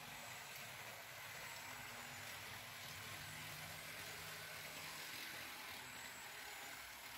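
Faint, steady running of model trains on a Märklin C-track layout: an even hiss with a low hum that swells slightly midway.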